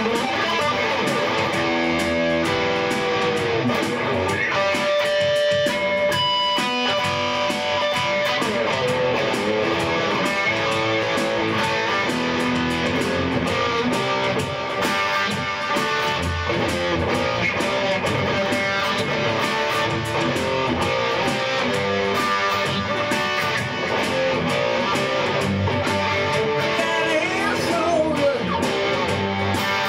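Instrumental rock music carried by guitar, playing steadily without a break.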